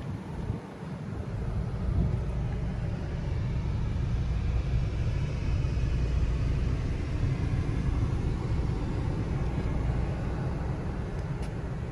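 Low, steady rumbling background noise that swells about two seconds in and then holds.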